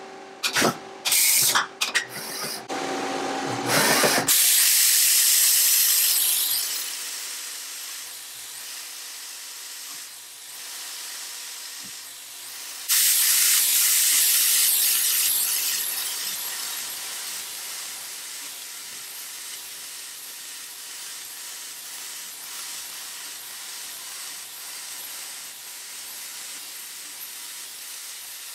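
A few short stop-start bursts of a small motor, then a loud hissing spray that starts suddenly, eases off to a steady hiss, and starts again at full strength about halfway through.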